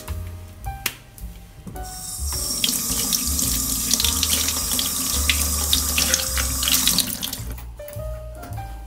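Water running from a kitchen tap and splashing over a sprig of rosemary rinsed under the stream by hand. It comes on about two seconds in and stops about a second before the end.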